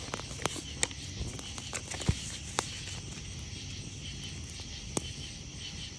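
Wood campfire crackling with scattered sharp pops, over a steady high chorus of night insects.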